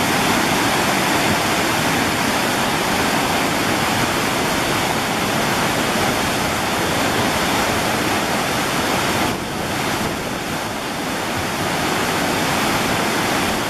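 Waterfall whitewater cascading over rocks: a steady, dense rush of water, easing slightly about nine seconds in.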